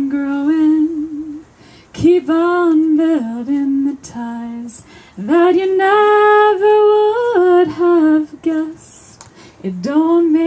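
A woman singing solo and unaccompanied in slow phrases, holding long notes, with short pauses between phrases.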